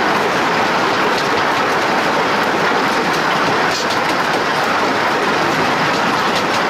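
Steam locomotive's driving wheels and running gear rolling along the rails, heard from right beside the wheels: a loud, steady rushing rumble with a few faint clicks.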